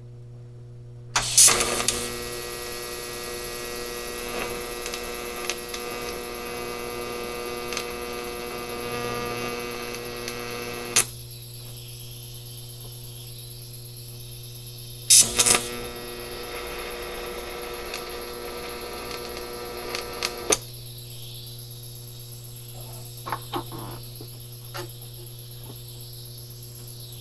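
TIG welding arc buzzing as a nut is welded onto a broken exhaust stud to build it up: one run of about ten seconds, then a second of about five, each starting with a sharp crackle. A steady electrical hum from the welder runs underneath, with a few small clicks near the end.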